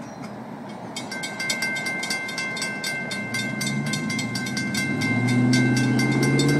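Railroad grade-crossing warning bell ringing rapidly, starting about a second in. Under it, a pickup truck's engine grows louder and rises in pitch as it accelerates past, loudest near the end.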